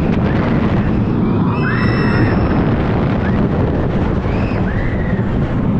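Wind buffeting the microphone over the rumble of a steel roller coaster car running along its track. Several brief high squeals rise and fall through it, the strongest about two seconds in.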